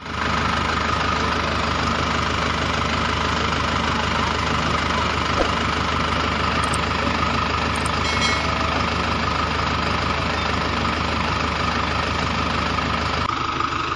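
Steady engine idling, cutting in abruptly at the start and running evenly; its tone shifts slightly near the end.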